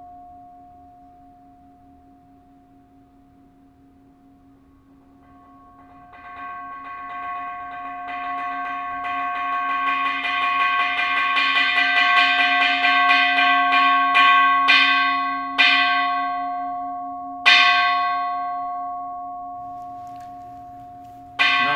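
Buddhist altar bell ringing: the ring of an earlier strike fades away, then about six seconds in a fast roll of strikes swells up, followed by three single strikes spaced a second or two apart, each ringing out. Another strike comes just before the end.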